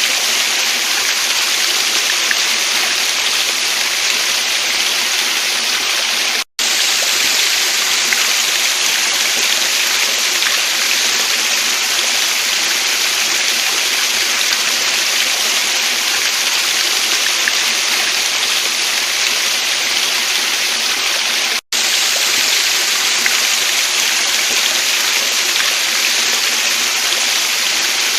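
Waterfall and stream water rushing in a steady, even hiss. It cuts out for an instant twice, about six and a half and about twenty-two seconds in.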